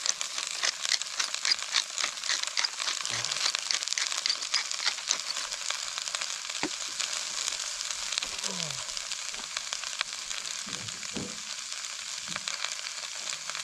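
Sliced potato, zucchini, onion, hot peppers and dove meat sizzling in a hot cast-iron Dutch oven: a steady crackling sizzle.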